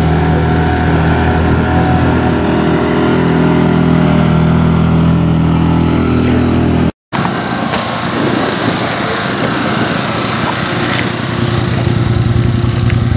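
Drag-race car engines running at a steady speed: one steady engine note that cuts off at an edit about seven seconds in, then a noisier stretch and another steady engine note from about eleven seconds.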